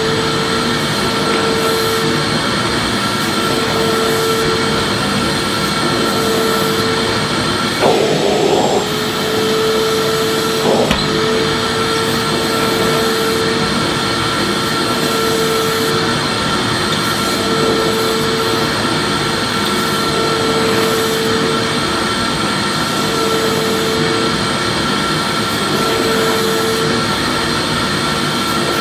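Vacuum cleaner motor running steadily, a dense whooshing drone with a low tone that swells and fades about every two seconds. There is a brief bump about eight seconds in and a faint click a few seconds later.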